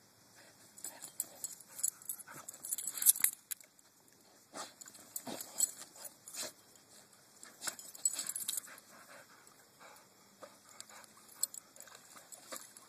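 Dogs digging and sniffing at a mole hole in loose soil: irregular scratching of paws in dirt and nosing snuffles, in uneven bursts with short pauses.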